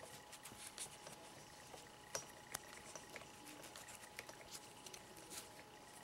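Faint rustling and scattered light clicks of paracord being handled and threaded through a plastic buckle slot, over a faint steady hum.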